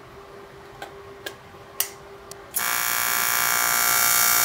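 AC TIG welding arc on aluminium plates, struck about two and a half seconds in and then buzzing loudly and steadily. Before it there is only a faint steady hum and a few light clicks.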